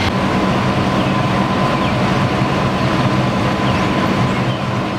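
Fire truck's diesel engine running steadily, a low hum with a thin steady whine over it.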